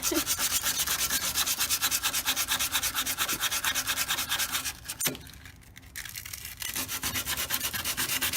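Sandpaper rubbed rapidly back and forth by hand on painted car-body metal, taking the paint off down to bare metal for a ground wire's mounting point. The strokes stop for a moment about five seconds in, then resume.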